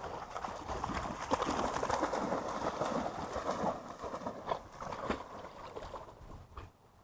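Water splashing as a dog runs through shallow lake water, a dense, crackling splash that dies away near the end.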